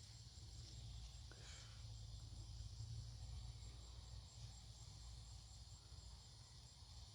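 Near silence: faint outdoor background with a low steady rumble and a couple of faint soft ticks about a second and a half in.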